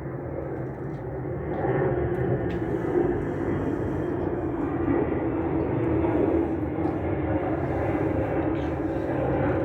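Airplane engines, a steady rushing drone that grows louder about two seconds in and then holds.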